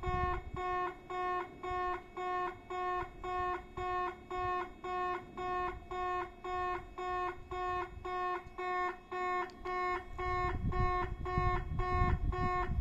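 Warning sounder of a level crossing inside a railway station, repeating one steady, half-hearted-sounding electronic tone about two and a half times a second. A low rumble comes in under it near the end.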